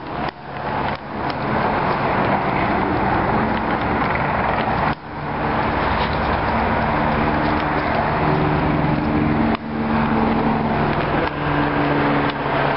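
Police helicopter flying overhead: a loud, steady rotor and engine noise with a low hum, cut by brief sudden drops about five and ten seconds in.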